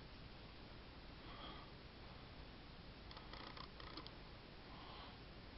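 Near silence: faint room tone with a short run of light metallic clicks about three seconds in, from 1911 pistol parts being fitted together by hand, and a couple of faint breaths.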